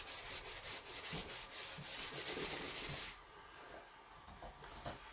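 Sandpaper rubbed over a painted plastic body panel in quick back-and-forth strokes, about five a second, scuffing down the paint to blend out surface marks before primer. The strokes stop about three seconds in.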